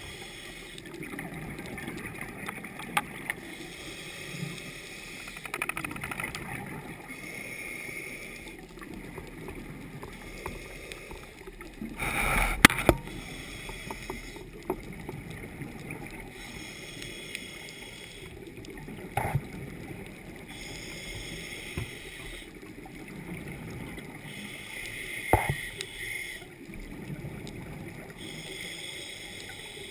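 Underwater sound through a camera housing: a scuba diver's regulator breathing, with hissing and bubbling coming back every few seconds. There is a loud knock about twelve seconds in and a few smaller knocks later, likely the gear touching the housing.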